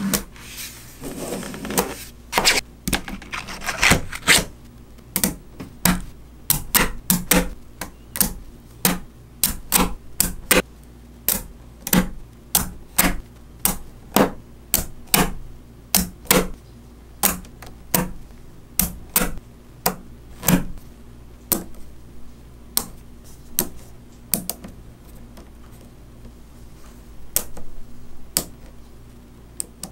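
Small Neocube neodymium magnet balls clicking as blocks of them are snapped together and pressed into place by hand, a sharp click every second or so. The first few seconds hold a denser, rougher clatter of balls shifting against each other. The clicks thin out near the end.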